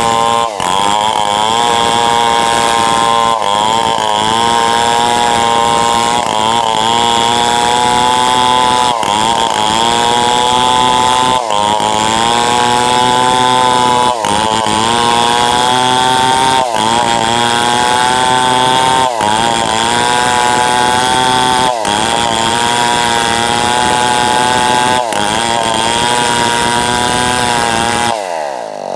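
Tuned-up New West 707 chainsaw running hard while cutting wood lengthwise, its engine pitch dipping briefly and recovering about every two and a half seconds. Near the end the running sound drops off sharply.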